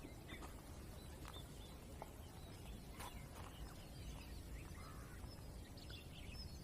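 Faint scattered chirps of small birds calling, over a steady low rumble.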